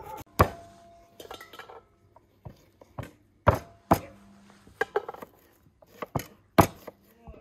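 Knives cutting onions on wooden cutting boards: separate sharp knocks of the blade on the wood, irregularly spaced, roughly one or two a second.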